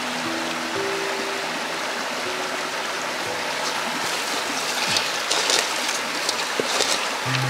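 Steady rush of a shallow rocky stream. From about four seconds in, it is joined by crackly rustling as hands squeeze and rub grated coconut against a metal bowl.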